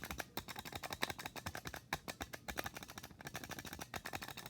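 Dover Impulse elevator push-buttons clattering after a press: the small hammers inside tap in a rapid run of sharp clicks, roughly ten a second, which cuts off suddenly at the end.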